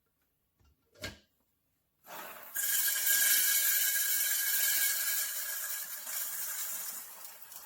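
A click about a second in, then an Ollygrin electric conical burr coffee grinder running for about five seconds, a grinding noise with a steady whine, fading away near the end.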